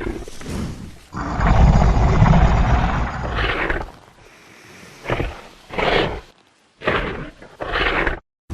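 Designed Tyrannosaurus rex vocalizations: one long, deep rumbling roar about a second in, followed by five short, separate calls.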